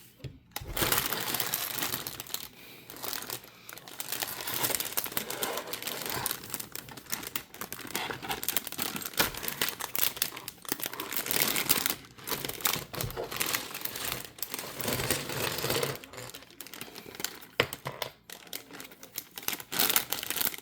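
Plastic bags of Lego parts and paper instruction booklets crinkling as they are handled, in irregular bursts with short pauses.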